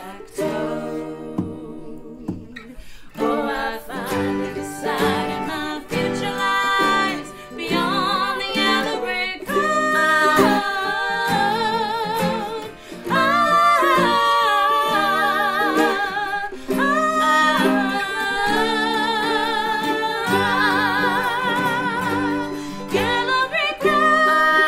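Women's voices singing with vibrato over acoustic guitar, mandolin, fiddle and autoharp.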